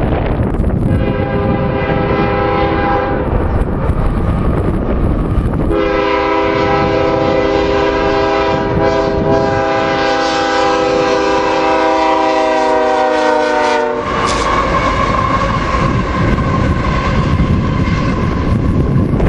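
Horn of a Canadian Pacific ES44AC-led freight train: a short blast, then one long blast of about eight seconds that dips slightly in pitch at its end. After that comes the rumble of the train rolling past with a steady high tone over it.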